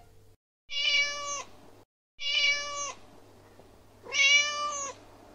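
A cat meowing three times, each meow short and steady in pitch, the third the loudest.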